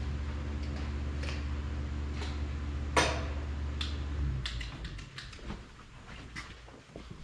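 Steady low machine hum that cuts off about four seconds in, under the clicks and knocks of tools and parts being handled, with one sharp clack about three seconds in as the loudest sound.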